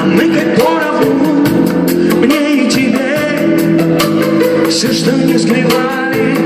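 A male singer singing a pop song cover live over instrumental backing with a steady drum beat.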